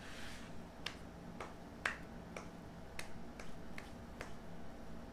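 Quiet, sharp clicks from a person's hands or fingers, about eight at uneven intervals, the loudest about two seconds in, over a low steady hum.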